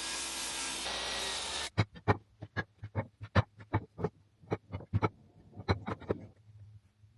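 A steady hiss that cuts off suddenly about two seconds in, followed by a run of irregular sharp knocks, about three a second, that stop about six seconds in.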